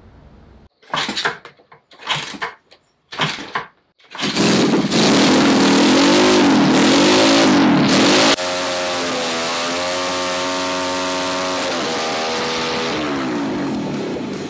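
125cc four-stroke semi-automatic engine block being started: three short bursts as it is kicked over, then it catches about four seconds in. It runs loud, revving up and down with the throttle, then settles to a steady run, with a last dip and rise in revs near the end.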